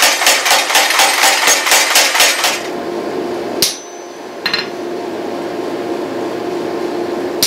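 Rapid, even hammer blows on mild steel, about four or five a second, forging the pommel block, stopping about two and a half seconds in. A steady hum follows, broken by two single knocks.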